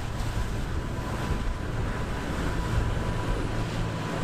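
Wind buffeting the microphone over breaking surf and the rush of a boat's wake, with the low steady drone of a crew boat's engines that grows stronger about halfway through.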